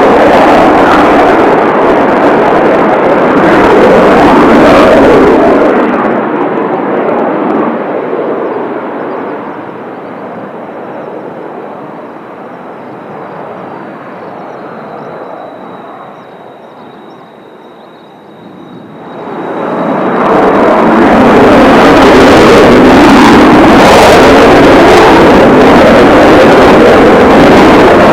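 Kawasaki T-4 jet trainers' twin turbofan engines at takeoff power: a loud jet roar that fades away over the next ten seconds or so, then a second jet roar builds up about twenty seconds in and stays loud. A faint steady high whine lingers in the quieter stretch between them.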